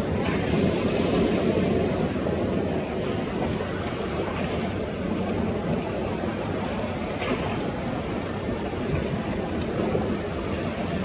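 Steady rushing noise of sea surf and wind, swelling and easing slowly.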